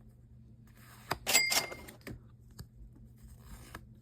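Trading cards being slid off the top of a stack, a brief scraping swish about a second in with a short bright ring in it, then fainter rustling of the cards.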